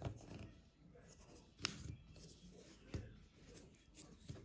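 Faint handling of a small reed-diffuser bottle as its top is pulled open: soft scraping with three sharp clicks, the clearest just under two seconds in.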